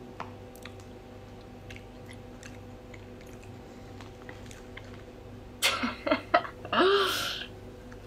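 Wet, close-up chewing and lip-smacking of someone eating profiteroles, faint clicks scattered throughout. About five and a half seconds in, a much louder burst of sound with a person's short laugh.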